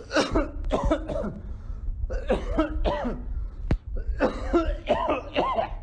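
A man coughing repeatedly in several bouts, over a steady low rumble.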